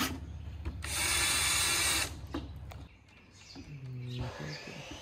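Bosch 12 V cordless drill driver running in a short burst of about a second, driving a screw into a PVC frame; the burst starts about a second in.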